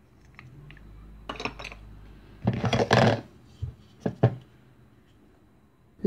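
Velcro fastening of a plastic toy vegetable ripping apart as its halves are pulled open, a short rasp about halfway through. A few light clicks of hard plastic toy food pieces knocking against a plastic bowl come just before and after.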